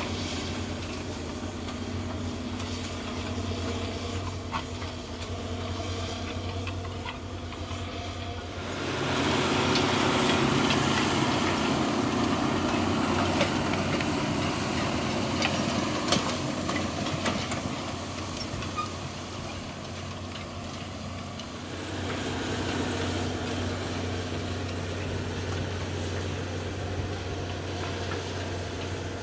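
A heavy vehicle's engine running steadily. About 9 s in the sound changes abruptly to a louder, rougher running noise, and about 21 s in it returns to the steadier hum.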